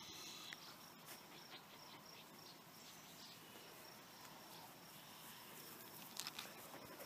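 Near silence with faint, repeated high-pitched chirping of an insect, such as a cricket, in the first few seconds, and a few soft clicks near the end.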